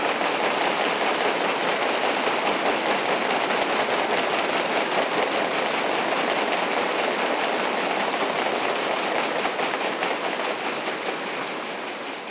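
Banquet audience applauding: a long, loud round of many hands clapping, tapering off near the end.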